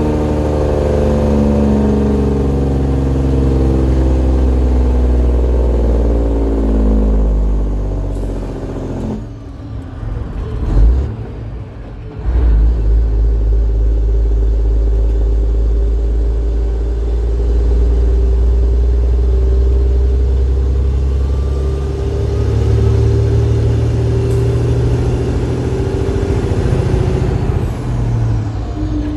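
Detroit Diesel Series 60 12.7-litre diesel engine pulling a heavily loaded truck of about 135,000 lb. About nine seconds in the engine note drops away for a few seconds during a gear shift, with a thump, and then it pulls steadily again.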